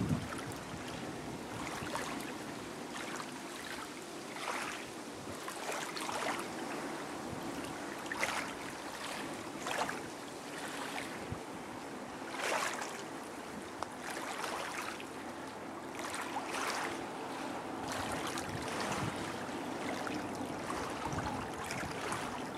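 Small waves lapping at the shoreline: a steady wash with a soft splash every second or two.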